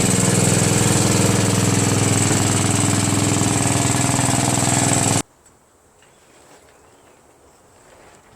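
A small gasoline engine, like a lawn tractor's, running steadily at high idle. It cuts off suddenly about five seconds in, leaving only faint outdoor background.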